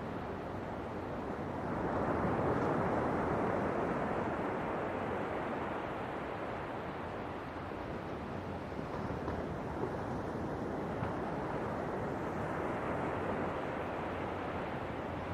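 Ocean waves washing on the shore, a steady roar of surf that swells with a breaking wave about two seconds in and then slowly eases off.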